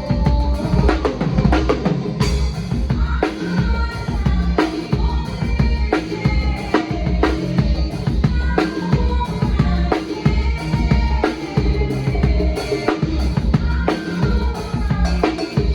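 Sonor drum kit with Orion cymbals played in a steady groove: bass drum, snare and cymbal hits, with other pitched instruments playing along.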